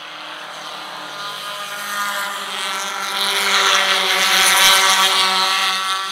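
Four-cylinder stock race cars driving past close by at speed, their engines' steady drone swelling to its loudest about four to five seconds in and starting to fade near the end as they go by.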